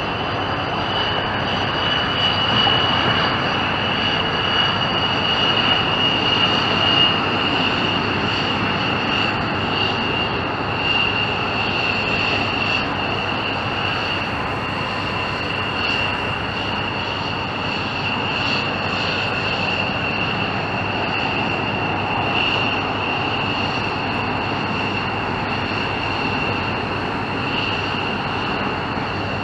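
McDonnell Douglas F-15 Eagle's twin turbofan engines running at low power as the fighter rolls out along the runway after landing: a steady roar with a high, even whine on top, a little louder for the first several seconds.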